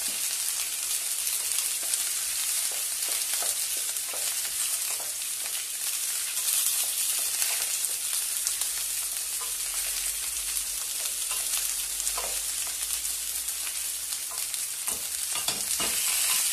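Onions and peppers with freshly poured grated tomato sizzling in a steel pot as they are stirred with a wooden spoon, with scattered light taps and scrapes of the spoon.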